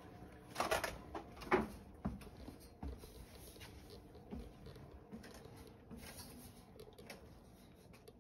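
Footsteps and knocks on wooden stairs and floorboards, with the handheld phone rubbing and bumping as it is carried. There are two louder knocks in the first two seconds, then softer, irregular steps.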